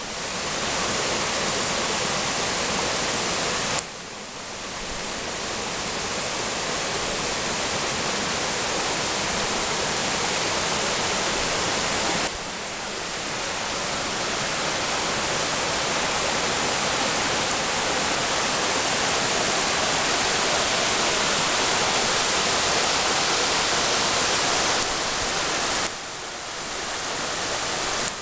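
Small woodland stream rushing and cascading over rocks, a steady loud rush of water. The level drops suddenly three times and swells back each time.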